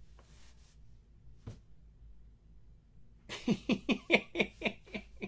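A man laughing: a quick run of short "ha" sounds, each falling in pitch, about four a second, starting a little past halfway and fading toward the end. Before it, a few quiet seconds with a faint tap.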